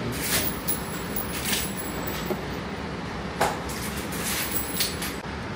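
Steady background rush with a handful of short, sharp knocks and clicks, the loudest about three and a half seconds in.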